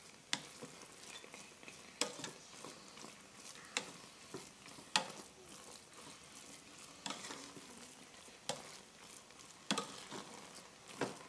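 Plastic rice paddle stirring cooked spiced rice in a rice cooker's inner pot, the grains rustling, with sharp knocks of the paddle against the pot every second or two.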